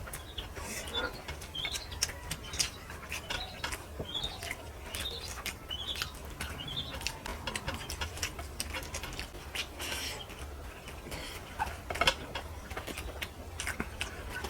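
Close-up eating sounds of rice and brinjal fry: chewing and wet lip smacks, heard as many short sharp clicks. Short high rising chirps come several times in the first half.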